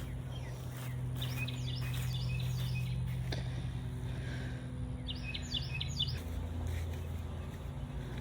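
Birds chirping in two short bursts of quick calls, over a steady low hum.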